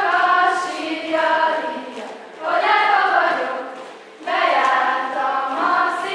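A group of young girls singing together as a choir. The song comes in sung phrases with short breaks at about two and a half and four seconds in.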